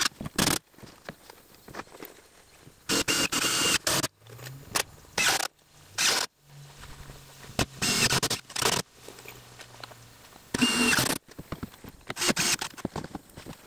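Cordless impact driver run in short bursts of about half a second to a second, around five times, driving long screws through the siding panels into the wall studs. A faint low hum runs under the middle stretch.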